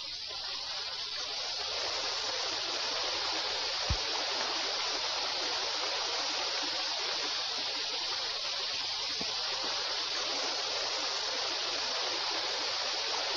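Steady rushing noise of running water. It fades in over the first couple of seconds, and a faint click comes about four seconds in.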